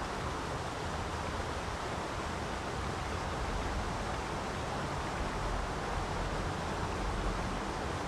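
Steady, even outdoor noise with no distinct events.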